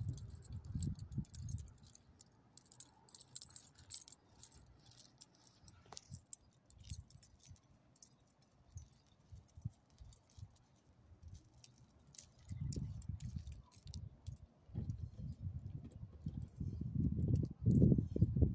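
Small dog on a leash moving over gravel: light metallic jingling and clicking from its collar and leash hardware, scattered through the first half. From about two-thirds of the way in come clusters of low muffled thumps of the walker's footsteps, loudest near the end.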